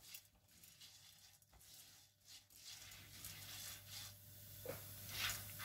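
Popcorn kernels in hot oil in a stainless steel pan, stirred with a silicone spatula: faint scraping and rattling, with a sizzle that grows louder over the second half. Near the end, a few sharp clicks as the first kernels start to pop.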